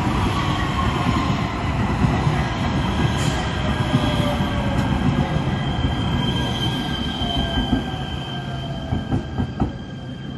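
Los Angeles Metro A Line light rail train (Kinkisharyo P3010 cars) running past close by, a dense rumble of wheels on rail with a steady high squeal and a whine that slowly falls in pitch. A few sharp clicks come near the end as the sound begins to fade.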